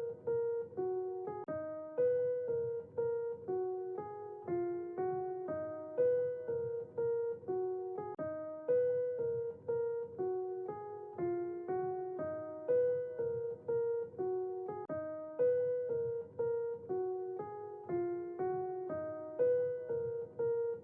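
Background music: a piano playing a gentle repeating phrase of single notes, about two a second.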